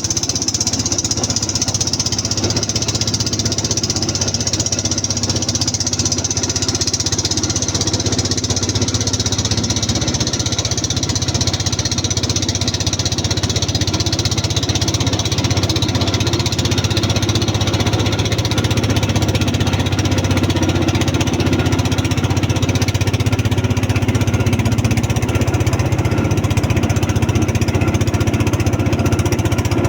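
Boat engine running steadily, without pause.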